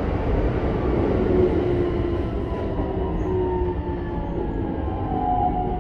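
Keikyu 1000 series electric train heard from inside the car. The Toyo IGBT-VVVF inverter and traction motors whine in a few thin tones that slide slowly downward, over a steady rumble of wheels on rail, as the train slows under braking.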